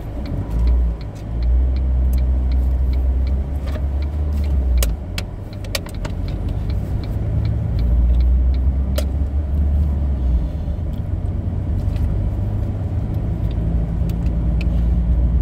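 Car driving on city streets, heard from inside the cabin: a strong low rumble of engine and road noise that swells and eases as the car moves off and picks up speed, with a few sharp clicks.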